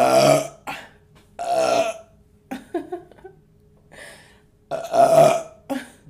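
A woman belching: three long, loud burps, at the start, about a second and a half in and about five seconds in, with smaller sounds between them.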